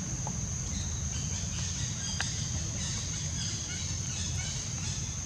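Steady high-pitched insect drone with scattered short chirps over it and a constant low rumble underneath.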